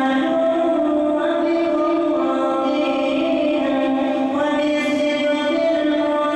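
Vocal music: chanted singing with long held notes that step from pitch to pitch.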